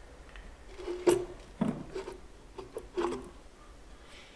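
Steel parts of a tank clutch knocking and clinking as the splined shaft is worked out of the clutch centre and handled: about five short sharp metallic knocks, the loudest about a second in.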